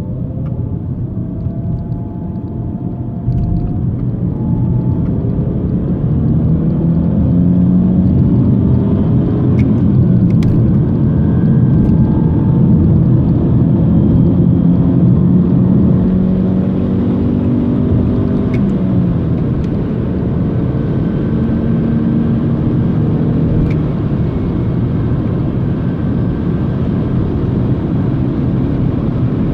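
BMW E90 320i on the move, with a whine that rises in pitch as the car gathers speed and falls again as it slows, over road and engine rumble. The owner can't tell whether the whine comes from the rear differential or the gearbox.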